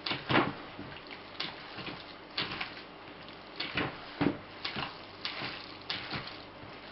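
Hands kneading and squeezing minced pork and beef with onion pulp in a plastic container: a dozen or so irregular squishes.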